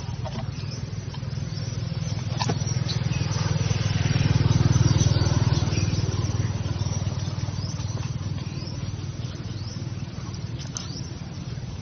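Low engine hum of a motor vehicle, growing louder to its peak about five seconds in and then fading away.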